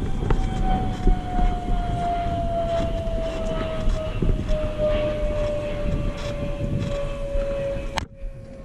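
A mountain bike rolling over the trail, with a steady whine from the bike that slowly falls in pitch as the bike loses speed. Under the whine is rumbling wind and trail noise with scattered knocks. The sound drops out abruptly near the end.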